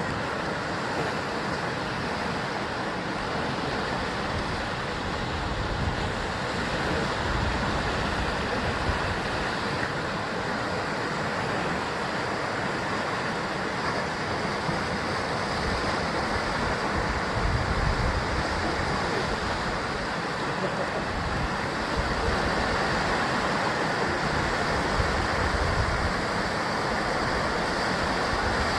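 Sea waves breaking and washing against a rocky shore of basalt column cliffs, a continuous rushing surf with slow swells of low rumble as larger waves come in.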